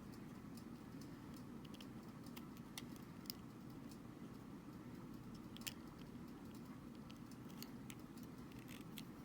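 Faint, scattered small clicks and ticks of a ribbon cable being worked into its connector inside a Joy-Con controller, over a low steady background hum.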